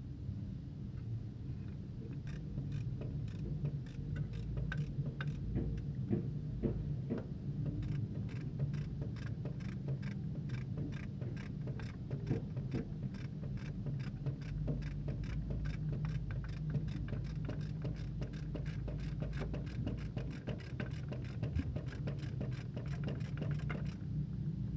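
Ratchet wrench clicking in quick, even runs as a mounting bolt on a diesel fuel injection pump is undone. The clicks start about two seconds in, come faster toward the end and stop just before it, over a steady low hum.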